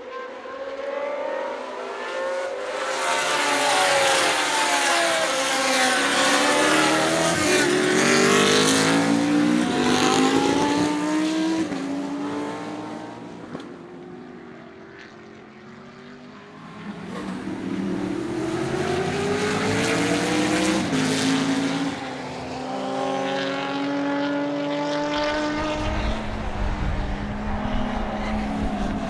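Historic racing car engines passing at speed, revving up and dropping in pitch with each gear change. They are loudest in the first half, fade away around the middle, then come back louder as more cars come through, with a deeper rumble near the end.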